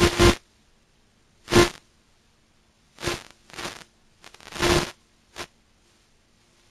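Several short, irregular bursts of hissing static from an analog FPV video receiver, cutting in and out between stretches of silence as the radio link breaks up.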